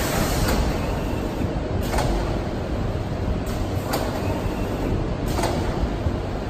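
Hybrid digital T-shirt printing machine running: a steady mechanical hum with six short, sudden hisses at uneven intervals as its screen-print carriage and squeegee cycle.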